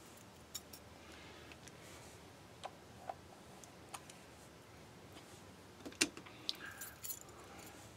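Faint scattered clicks and light taps from a screwdriver and small tools handled on an electric guitar while its pickup height is being set. The sharpest click comes about six seconds in.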